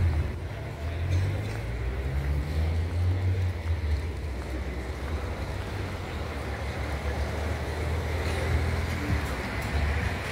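Wind buffeting the microphone as a low, unsteady rumble, over the steady noise of street traffic.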